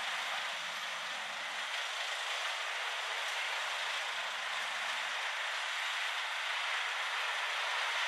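Bandit 1850 chipper with its Caterpillar diesel engine running, throwing chips out of the discharge chute with a steady rushing noise. A faint lower hum comes and goes twice.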